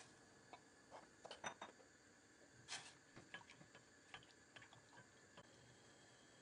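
Faint, scattered clicks and taps of a spatula stirring sugar into water in a stainless steel pot, with a short scrape about three seconds in; the sugar is being dissolved for syrup.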